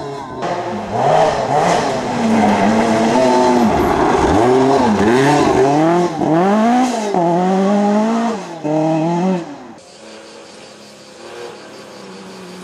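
Rally car engine revving hard, its pitch climbing and dropping again and again with gear changes and lifts through the stage. About ten seconds in it drops away to a faint distant engine hum.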